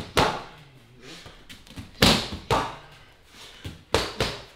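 Gloved punches landing on handheld Muay Thai pads in a pad-work drill: about five sharp smacks, one near the start, then two pairs about half a second apart.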